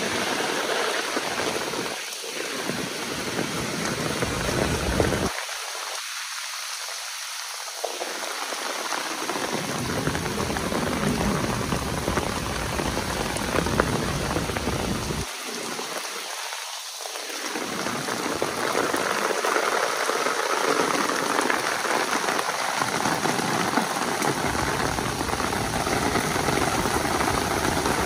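Heavy downpour: a steady hiss of rain falling and splashing on surfaces, getting a little louder in the second half.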